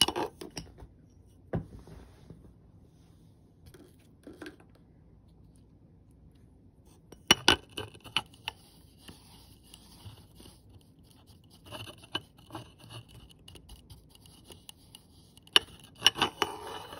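Plastic makeup compact knocked and clicked on a table, and a makeup brush rubbing scratchily over its pressed powder. Sharp clicks come at the start, about halfway through and near the end, with stretches of brushing between.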